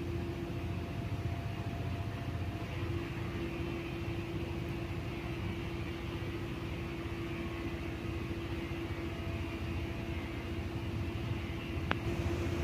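Cosmos 56-inch industrial ceiling fan running: a steady motor hum and air rush, with a single sharp click near the end.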